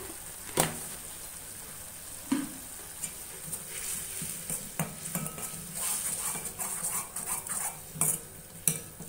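Tomato-onion masala sizzling in a metal kadai as a slotted steel ladle stirs it, with scattered scrapes and knocks of the ladle against the pan. The paste is being sautéed until the tomatoes soften.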